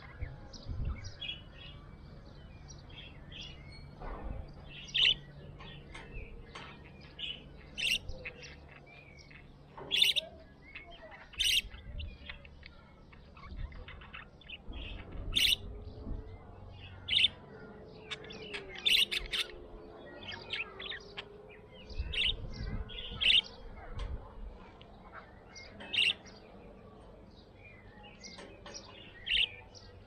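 Budgerigar chirping: many short high chirps at irregular intervals, a number of them much louder than the rest.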